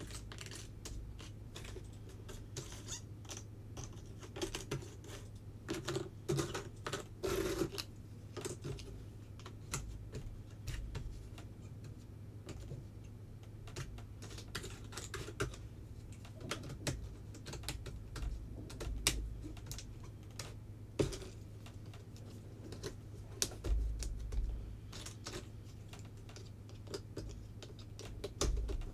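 Jigsaw puzzle pieces being picked up, shuffled and set down in a puzzle tray: irregular light clicks and taps, over a steady low hum.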